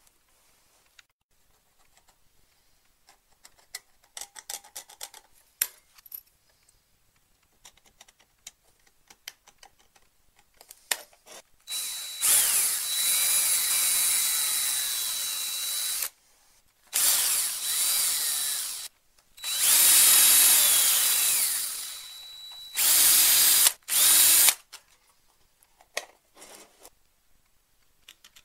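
Light clicks and rattles of plastic parts being handled, then a small electric drill running in four bursts of a few seconds each, with a steady whine and a wavering pitch, drilling into a 3D-printed plastic plate.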